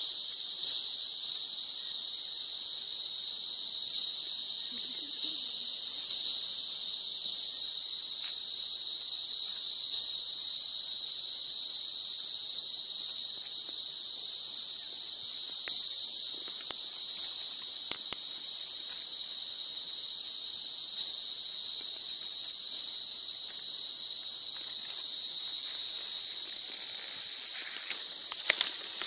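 Steady, high-pitched chorus of insects droning without a break. A few faint rustles and ticks come near the end.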